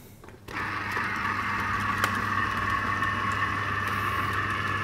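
Electric citrus press motor starting suddenly about half a second in and then running with a steady hum as its lever arm presses an orange half onto the spinning reamer cone.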